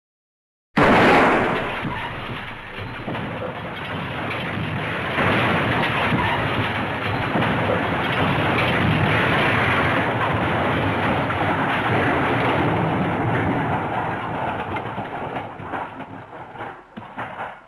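Library crash sound effect: a sudden loud impact about a second in, then a long, dense rumbling clatter, like falling debris. It fades and breaks up into scattered small knocks near the end.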